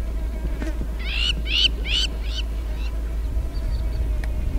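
A bird calling five short notes in quick succession, each rising then falling in pitch, over a steady low rumble.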